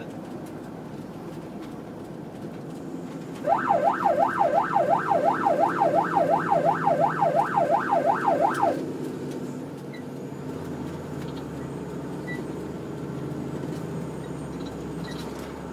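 Emergency vehicle siren on a fast yelp, sweeping up and down about three times a second for about five seconds, then cutting off. It is heard from inside the cab over steady engine and road noise.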